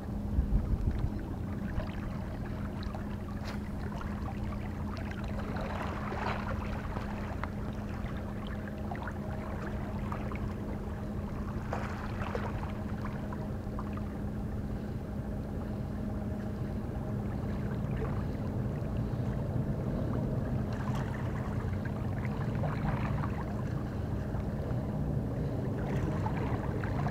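A steady low engine hum, with a few soft splashes of water now and then.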